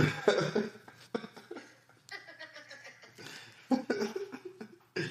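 People laughing: broken, uneven bursts of laughter in response to a joke.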